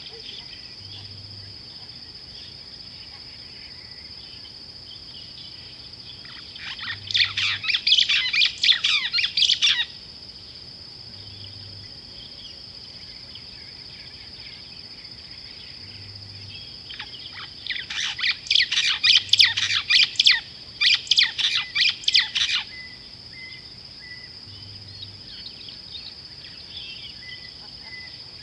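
Two bursts of rapid, chattering bird calls, the first about seven seconds in and a longer one from about seventeen to twenty-two seconds, over a steady high-pitched insect drone.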